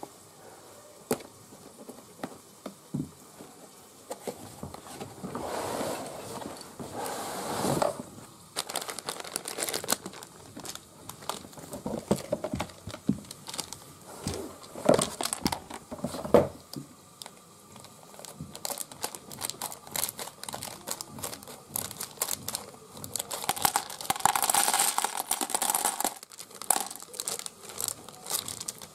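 Plastic bags of small toy building bricks being handled, crinkled and cut open with scissors, in irregular crinkly spells of a second or two, with scattered clicks of the plastic pieces in between.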